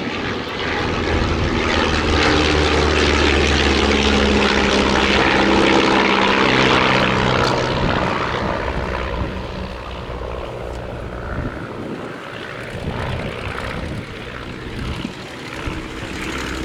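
Propeller engines of vintage biplanes, a Stampe SV4 and a de Havilland Tiger Moth, droning as they fly by. The drone builds to its loudest in the first half and then fades.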